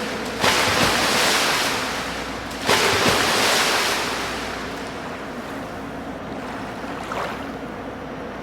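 Swimming-pool water splashing and churning. Two sudden loud splashes come about half a second and nearly three seconds in, each dying away into a quieter wash of moving water.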